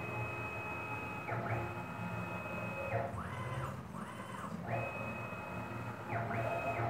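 Stepper motors driving the X and Y axes of a PM-25MV benchtop milling machine converted to CNC, making a series of moves: each one a whine that rises in pitch as the axis speeds up, holds steady, then falls as it slows and stops. There are about six moves, some long and some short. Under the whine is a low hum from the mill's metal stand and its door vibrating in resonance.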